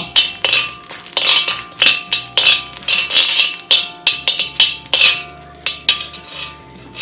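Metal slotted spatula scraping and clinking against a cast-iron wok, stirring whole spices frying in hot ghee, in repeated strokes about two a second.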